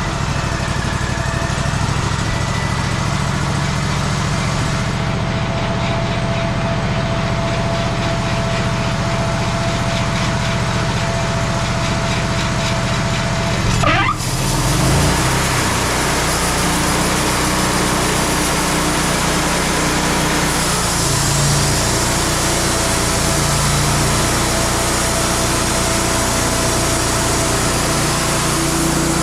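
Wood-Mizer LT50 sawband mill's engine running steadily. About halfway through the sound shifts with a brief sweep, and more hiss follows from then on.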